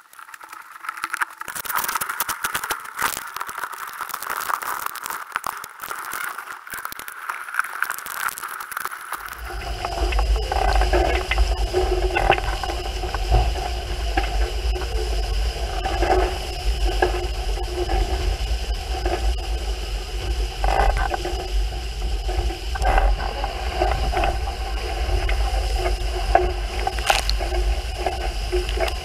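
For about the first nine seconds, scraping and clicking. Then a Hurricane 5.9 Sport catamaran under sail at speed, with water rushing and spraying along the hull and wind buffeting the camera's microphone in a steady deep rumble.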